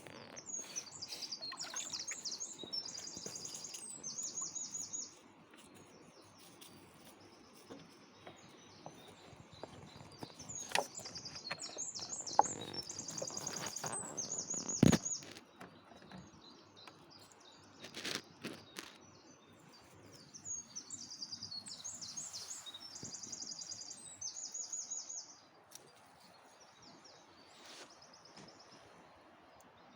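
A songbird singing the same high, multi-part phrase three times, about ten seconds apart. A few sharp knocks are heard in the middle.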